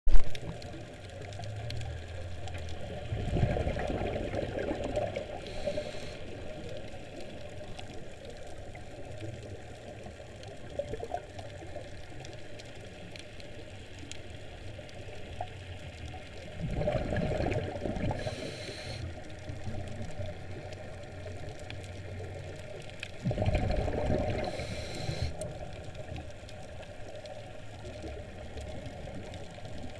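Underwater sound heard through a camera's waterproof housing: a steady low wash of water, broken three times by a couple of seconds of rumbling scuba regulator exhaust bubbles, each ending in a short hiss. It opens with a short knock.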